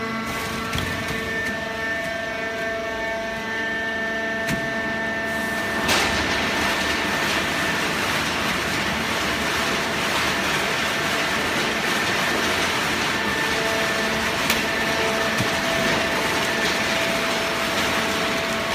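Hydraulic cardboard baler machinery running: a steady hum with several held tones, becoming a louder, denser rushing noise with a high whine from about six seconds in.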